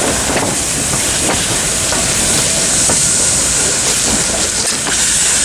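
Peppercorn A1 Pacific steam locomotive 60163 Tornado and its tender rolling slowly past at close range, steam hissing steadily from the open cylinder drain cocks, with a few faint clicks and knocks from the wheels and running gear.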